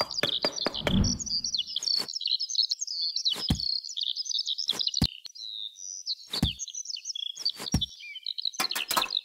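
Small birds chirping and tweeting, steady background birdsong. Over it come a short scraping of a small trowel on sand in the first two seconds and several light, separate knocks as pieces are set down.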